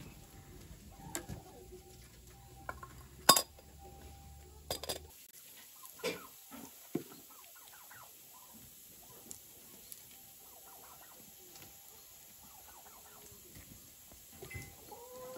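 Chickens and a turkey clucking softly, with scattered short calls and a longer curved call near the end. A single sharp knock about three seconds in is the loudest sound.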